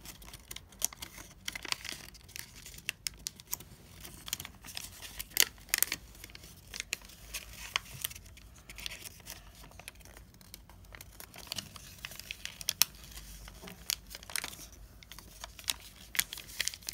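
A sheet of colored origami paper crinkling and rustling under the fingers as it is folded, with irregular sharp crackles as the creases are pressed flat. The paper is being folded into a crane base, its flap pushed upward and flattened.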